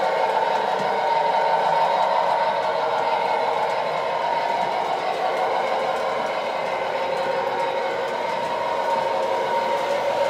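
Lionel model train running on three-rail track, a steady whirring rumble of motor and wheels that holds even throughout.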